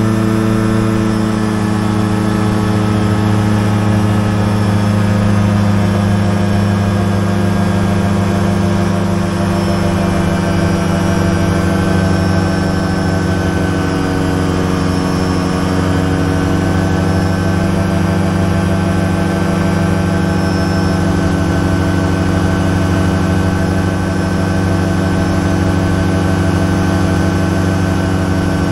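Light high-wing aircraft's engine and propeller droning steadily in flight, heard from inside the cockpit. The pitch wavers slightly about halfway through.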